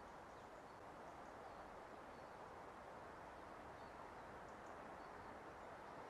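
Quiet outdoor ambience: a steady low hiss with a few faint, brief, high-pitched calls of small birds scattered through it.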